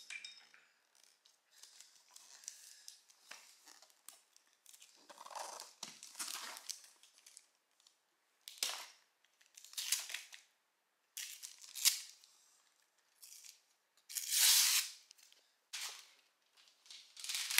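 Christmas wrapping paper being torn off gifts by hand in a series of short rips and crinkles, the longest and loudest rip about fourteen seconds in.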